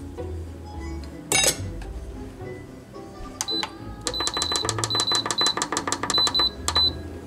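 Instant Pot Duo control panel beeping quickly, about six short high beeps a second, as its button is pressed over and over to raise the cooking time. A short sharp clatter comes about a second and a half in.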